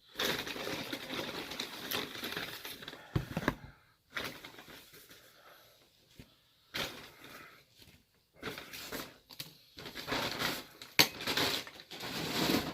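Paper takeout bag and food wrappers rustling and crinkling in stretches with short pauses, with a few sharp clicks near the end, as a McDonald's delivery order is unpacked.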